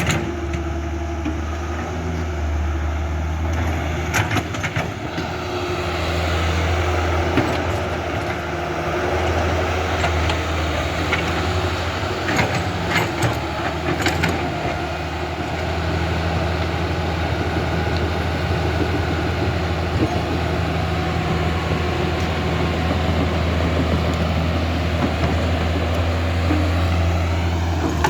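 Excavator running steadily with a low engine hum, with a few sharp clacks and knocks at several points.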